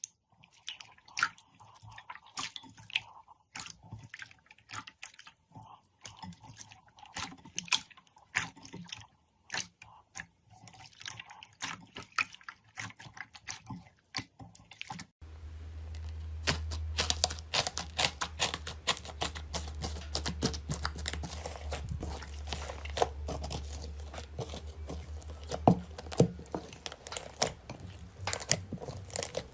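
Slime being squeezed and pressed by hand, making sticky popping and crackling clicks. About halfway through it changes abruptly to a denser, continuous crackle over a low hum.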